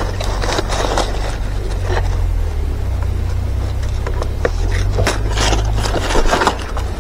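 Hands handling the electrofishing rig's white wire leads, with scraping and rustling against dry leaves. Under it runs a steady low rumble, and there is a cluster of sharper scrapes about five seconds in.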